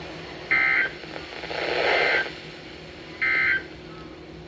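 NOAA Weather Radio SAME digital data bursts: two short, buzzy tone bursts about two and a half seconds apart, the end-of-message code that closes a warning broadcast. Radio hiss swells between them.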